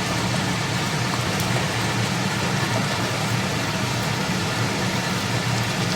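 Boneless chicken pieces sizzling in hot oil and masala in the pot, a steady frying hiss, over a low steady hum.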